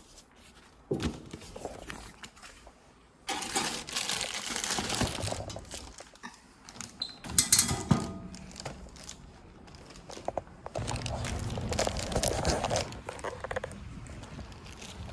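Irregular rustling and crinkling, with a few sharp knocks.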